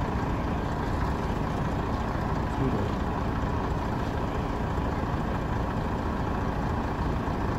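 A bus engine idling with a steady, even rumble.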